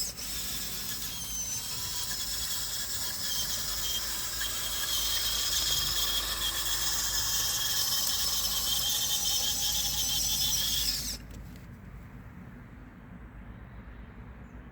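High-pitched whine of a radio-controlled construction model's small electric motors and gearboxes running steadily. It cuts off suddenly about eleven seconds in, leaving a faint low hum.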